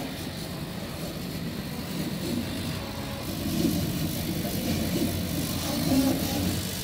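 Large-format CO2 laser cutting machine running: steady fan and extraction noise, with the wavering whine of the gantry motors as the laser head moves over the fabric, growing louder from about two seconds in.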